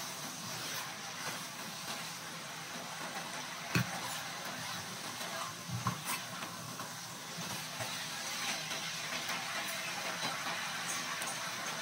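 Chicken feet sizzling steadily in dark soy-sauce braising liquid in a pan, stirred with a spatula at first, with a sharp knock of the spatula against the pan about four seconds in and a couple more around six seconds.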